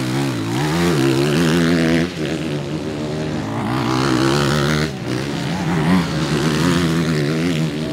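Motocross bikes' engines revving hard, the pitch wavering up and down as the throttle is worked, dropping briefly about two and five seconds in.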